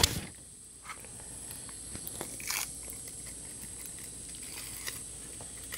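Oak and pecan wood fire under a grill grate crackling quietly, with a few scattered pops over a faint steady hiss, opening with one sharp click.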